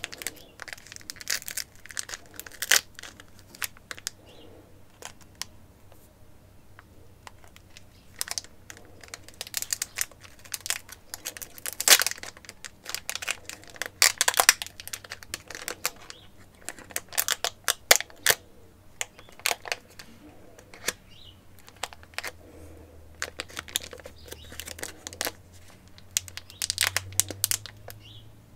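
Crinkling and crackling of a Pokémon booster pack's foil wrapper being handled, in irregular clusters with short pauses.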